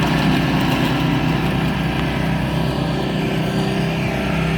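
Riding lawn mower engines running steadily at speed during a race, a continuous even engine drone.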